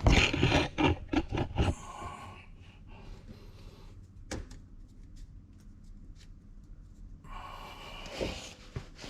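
Metal brake parts clattering and knocking as they are handled and put back in place. A single sharp click comes about four seconds in, and quieter handling noise with a couple of knocks near the end.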